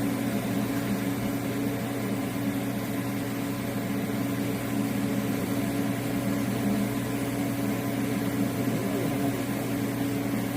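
Welding equipment giving a steady electric hum and buzz at an even level throughout.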